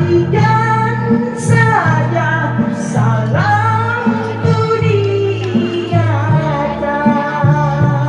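A man singing a Malay song into a corded microphone over a karaoke backing track, holding long notes that slide between pitches over a steady bass line.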